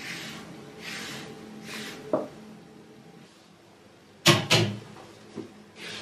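A perforated metal heat-diffuser plate set down on a gas hob's grate: two sharp metallic clanks close together about four seconds in, with a smaller click after. Before that, a few soft swishes of handling and a light knock.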